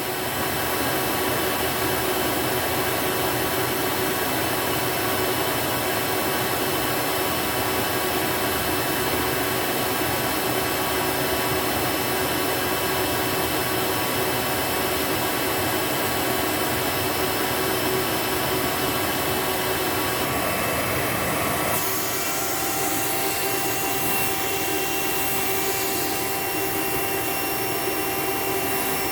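Hoover Elite upright vacuum's brushed motor running steadily under test, drawing through its hose for a suction reading. About three-quarters of the way through, the tone changes and a new steady whine comes in.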